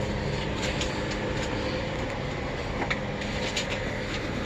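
Steady mechanical hum with a background rush of noise, with a few light clicks of small parts being handled.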